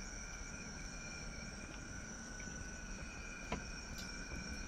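Night insects chirring in a steady, quiet chorus of several high tones, with one faint click about three and a half seconds in.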